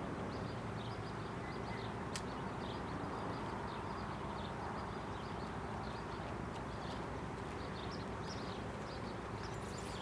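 Steady outdoor background noise with many short, high chirps repeating every fraction of a second throughout, and one sharp click about two seconds in.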